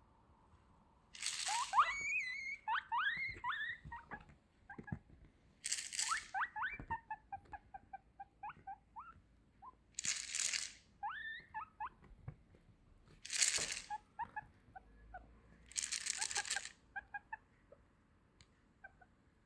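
A box of vitamin tablets rattled five times in short shakes. Each shake is answered by a guinea pig's run of short, rising squeaks (wheeking), the call a guinea pig makes when it expects food.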